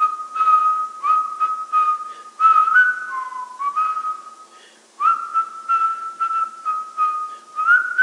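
A person whistling a tune: clear held notes with short slides up at the start of phrases and a dip in pitch about three seconds in, with a brief break shortly before the fifth second.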